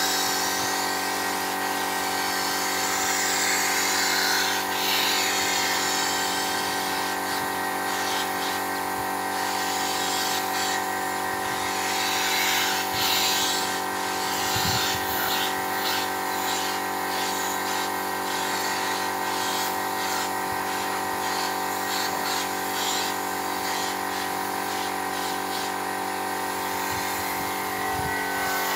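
Air spray gun with a cup underneath hissing in repeated short bursts as paint is sprayed, over a steady machine hum.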